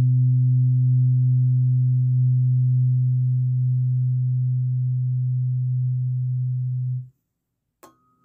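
A solar plexus chakra tuning fork ringing with a low, steady, pure tone that cuts off abruptly about seven seconds in. A sharp click with a brief higher ring follows near the end.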